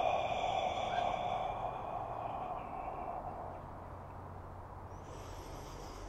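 A man's long, slow exhale through an open mouth, a breathy "haa" like fogging up a mirror, pushing all the air out in a breathing exercise; it fades away over the first three seconds or so. A faint breath in through the nose follows near the end.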